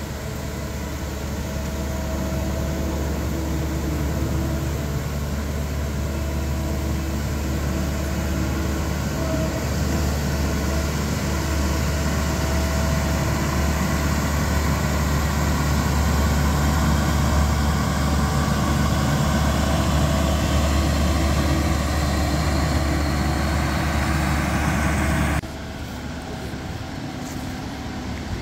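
Claas Crop Tiger 40 tracked combine harvester driving along a paved road, its diesel engine running steadily and growing louder as the machine comes close. About three seconds before the end the sound cuts off suddenly to a quieter, steady engine hum.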